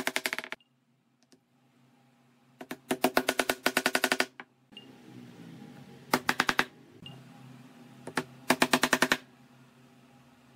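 Wooden mallet rapidly tapping small wooden inlay pieces into glued cut-outs in a wooden board. The strikes come in quick runs of about ten a second, four runs with short pauses between.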